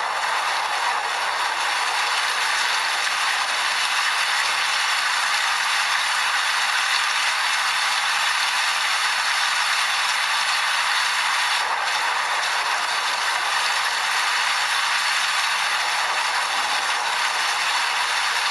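Steady, heavy rain falling: a dense, even patter of drops that does not change.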